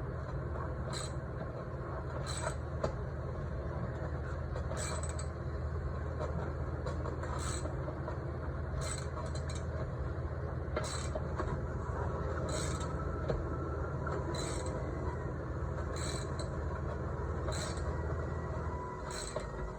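Bolts being tightened with a hand wrench: short metal clicks and creaks every second or two. A steady low hum runs underneath and stops near the end.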